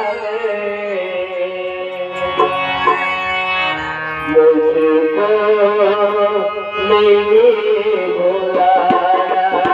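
Hindi devotional ghazal music: a long drawn-out melodic line that bends and wavers in pitch, over tabla.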